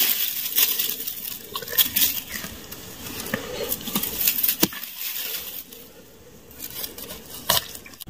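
Thin bamboo sticks and dry grass being handled by hand: irregular sharp clicks and rustling, with a louder click near the middle and another near the end.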